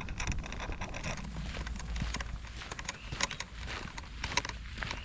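Footsteps of people walking along a trail, an irregular series of short steps, over a low steady rumble.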